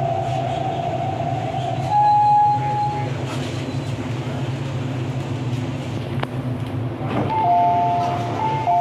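Interior running noise of an MTR East Rail line R-train electric multiple unit under way: a steady low rumble with electric whine tones that jump in pitch about two seconds in and again near the end.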